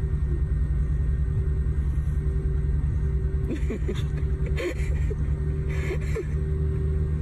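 Jet aircraft engine noise on an airport apron: a steady low rumble with a constant droning hum above it.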